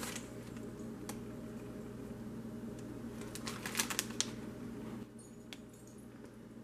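Faint crinkles and clicks of a candy bag being handled, bunched together about three and a half to four seconds in, over a quiet room hum.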